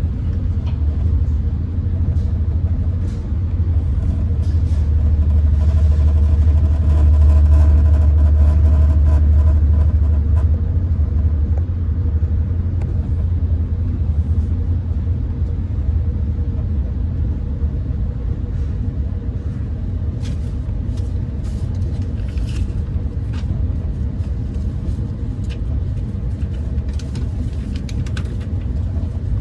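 Amtrak Pacific Surfliner passenger train running at speed, heard from inside the passenger car: a steady low rumble of the wheels and running gear. It swells to its loudest around the middle and then eases slightly, with a few faint clicks in the later part.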